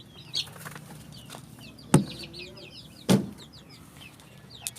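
Free-range chickens clucking and peeping in quick, high calls, with two sharp loud knocks about two and three seconds in.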